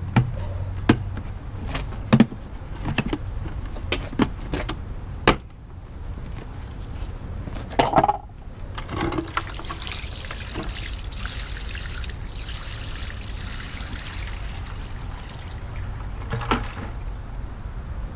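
Plastic bucket lid being prised off, with a run of sharp clicks and snaps. About nine seconds in, water is poured out of the bucket and splashes onto concrete for several seconds.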